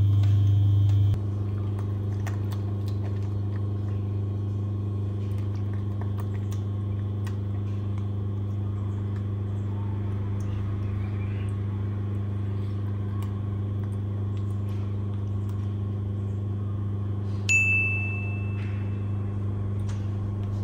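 Electric cooktop running under a covered pot with a steady low electrical hum, faint ticks over it. Near the end it gives a single short electronic beep.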